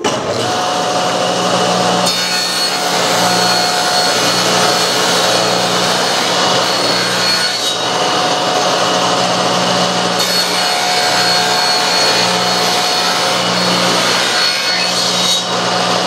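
Table saw running and cutting a thin wooden strip lengthwise, a steady sawing noise with a constant whine and hum. It dips briefly near the end.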